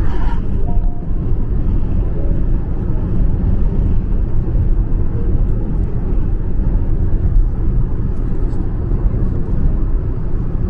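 Steady road noise inside a moving car: a low rumble of tyres and engine heard from the cabin.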